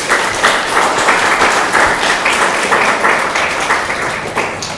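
Audience applause in a conference room: many people clapping, fading away near the end.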